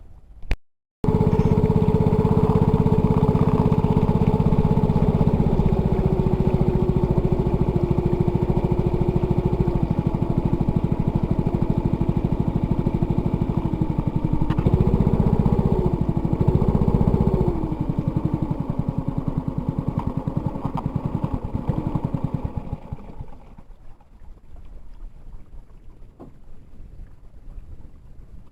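A small engine running steadily, starting abruptly about a second in. Its pitch wavers twice about halfway through, then it fades away near the end.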